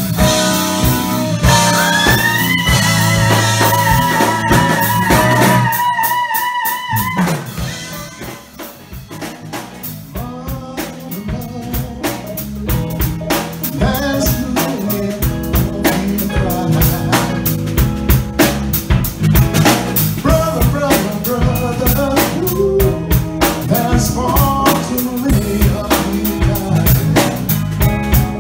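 Live band of electric guitar, bass guitar, drum kit and keyboard playing Motown-style R&B. A held, wavering note rings over the first several seconds, the music falls away briefly about seven seconds in, then the drums and band start up again and play on steadily.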